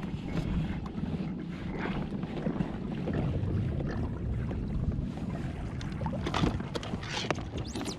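Wind buffeting the microphone over water against a kayak hull, with a few sharp clicks and knocks near the end.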